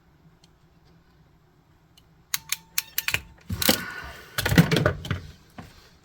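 Small hand tools and metal connector pins being handled at a bench: a quick run of sharp clicks about two seconds in, then louder rattling and scraping.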